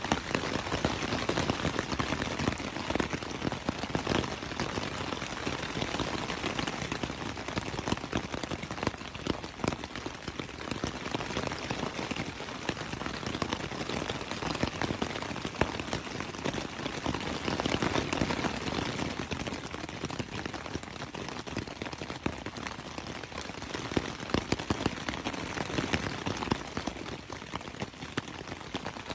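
Rain falling on a tent, heard from inside: a dense patter of drops hitting the fabric, growing heavier and lighter by turns.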